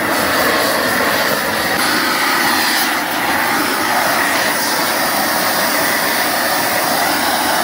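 A loud, steady rushing machine noise, like a motor or blower running, that cuts off suddenly at the end.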